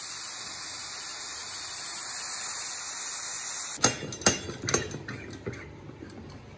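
Steam hissing steadily out of an aluminium stovetop pressure cooker's release valve as its pressure is let off. The hiss cuts off about four seconds in, followed by a few sharp metal clicks and clanks from the lid being handled.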